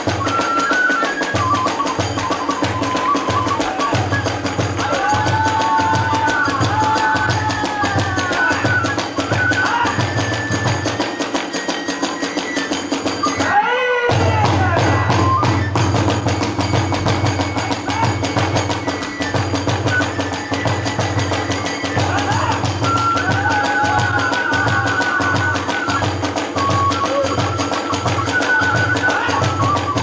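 Kagura hayashi music: a big drum (ōdaiko) beating a steady rhythm under a bamboo transverse flute (fue) playing wavering, sliding melodic lines. The music breaks off for a moment about halfway and then starts again.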